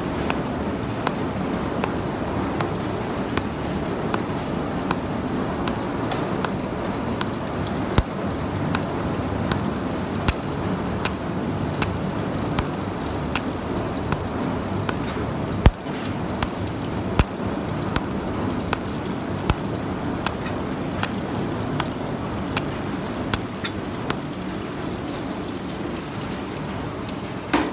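Pulsed micro-TIG cold welder (Taiwan Power SC200) running a seam on 0.49 mm black iron sheet in continuous pulse mode: a sharp tick with each arc pulse, about two a second, over a steady rushing noise.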